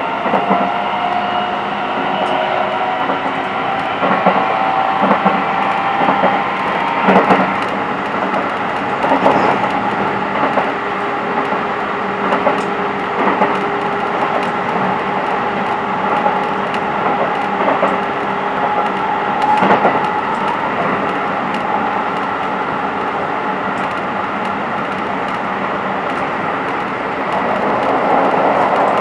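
Keikyu New 1000 series electric train heard from inside the passenger car while running at speed: a steady rumble of wheels on rail under a held electric motor whine that drifts slowly in pitch, with a few scattered knocks from the track.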